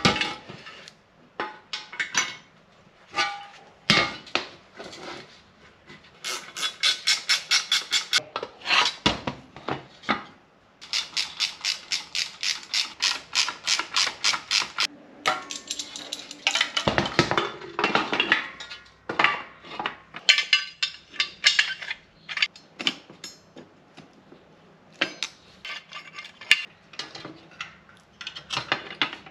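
Metal drum brake parts clinking and knocking against a steel brake backing plate and workbench as the brake is assembled, with two long runs of quick, even clicking at about seven clicks a second and a louder clatter a little past halfway.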